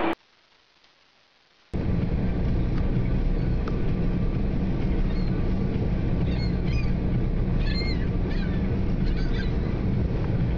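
After about a second and a half of near silence, gulls squawk with short, repeated calls as they squabble over spilled food, mostly in the second half, over a steady low rumble.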